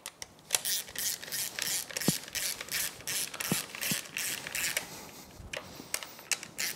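Hand ratchet wrench clicking in quick strokes, about four a second, as bolts are run down into an outboard powerhead. Near the end it slows to a few separate clicks.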